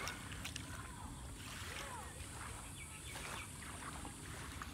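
Faint waterside ambience: small splashes and lapping of water at the shore over a low steady rumble, with distant voices.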